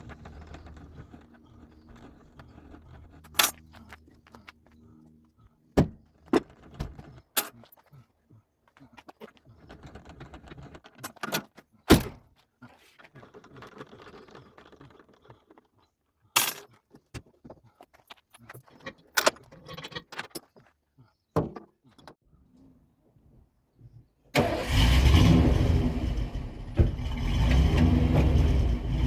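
Scattered sharp clicks, knocks and rattles, then about 24 seconds in a pickup truck's engine starts and keeps running, much louder than the clatter before it.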